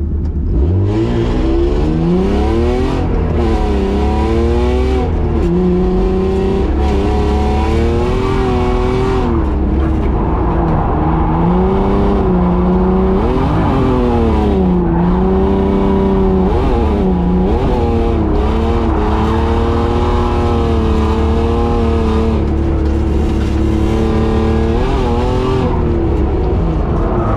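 BMW E36 drift car's engine heard from inside the cabin, revving up and down over and over as it is driven through a drift run.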